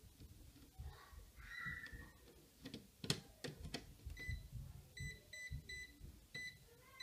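Klein Tools non-contact voltage tester beeping in short high-pitched beeps, about three a second, from about four seconds in, after a few clicks: it is sensing the thermostat's 24-volt supply.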